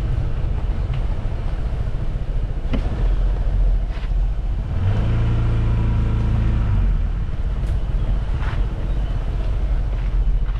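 Vehicle travelling along a road: a steady low engine and road rumble. A steady droning hum joins it for about two seconds a little past the middle.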